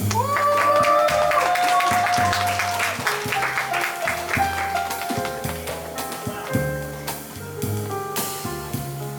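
Live jazz trio of piano, double bass and drum kit playing an instrumental passage, with cymbal and drum strokes thickest in the first few seconds and bass notes moving underneath.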